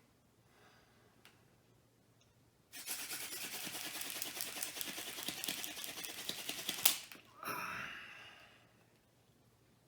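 Hand drill spun hard between the palms, a tall ironweed spindle grinding in a white pine fireboard notch with a fast ticking friction noise for about four seconds, ending in a sharp knock as it stops, followed by a short rush of breath.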